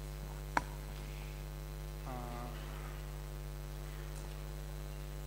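Steady low electrical mains hum, with a single sharp click about half a second in and a brief faint voice sound about two seconds in.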